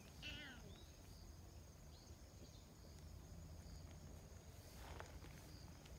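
Near silence: faint outdoor ambience with steady high insect trilling, a short zigzag chirp just after the start and a soft rustle near the end.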